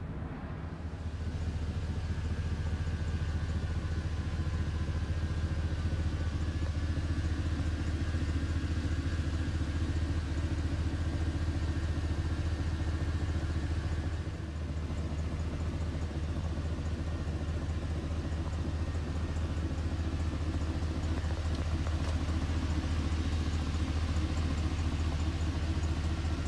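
2002 GMC Sierra 3500's 6.0-litre Vortec gasoline V8 idling steadily.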